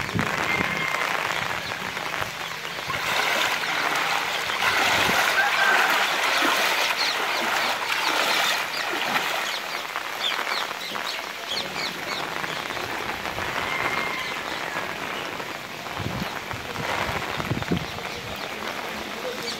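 Steady hiss of rain and running floodwater, with a few short high chirps over it.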